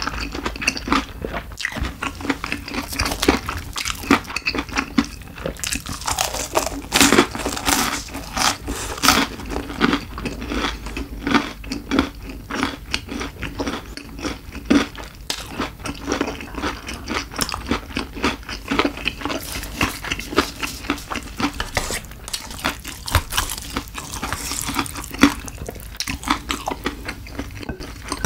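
Close-miked chewing of crispy fried food: a dense, irregular run of crunches and wet mouth sounds.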